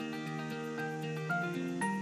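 Background instrumental music: a melody of held notes, with a quick run of falling notes near the end.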